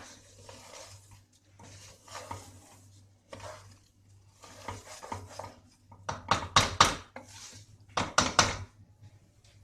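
Wooden spoon stirring rice frying in ghee in a pot: scraping strokes about once a second, with two louder runs of knocks against the pot in the second half.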